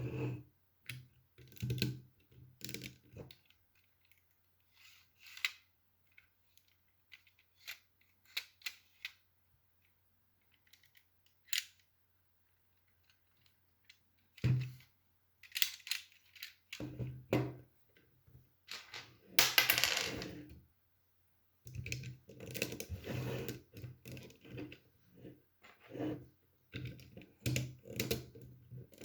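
Plastic Lego pieces being handled and clicked together, in irregular small clicks and rattles with pauses between them. There is a longer, louder rattle of pieces about two-thirds of the way through.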